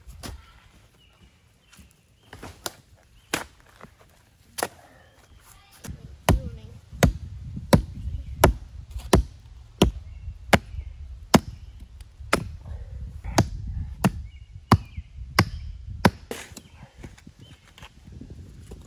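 A long-handled spade chopping down into packed, root-filled soil in a trench. There are a few separate strikes at first, then from about six seconds in a steady run of about three strikes every two seconds, with dull crunching of earth under them.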